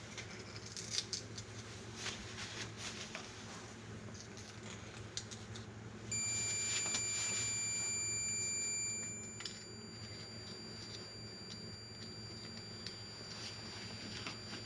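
Light, scattered metal clinks and scrapes as steel excavator pins and bolts are handled and cleaned. A steady high-pitched tone sounds for about three seconds starting about six seconds in, then cuts off.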